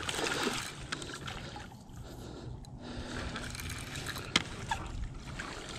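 A spinning reel being cranked while a hooked bowfin is hauled in through weedy shallow water, with water trickling and sloshing around it. There is a single sharp click about four and a half seconds in.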